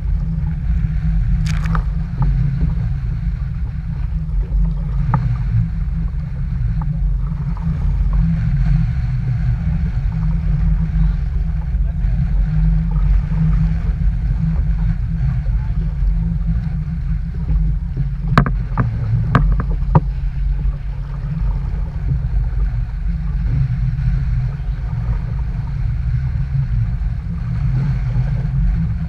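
Steady low rumble that rises and falls in level, with a few sharp knocks about a second and a half in and a cluster of them near the two-thirds mark.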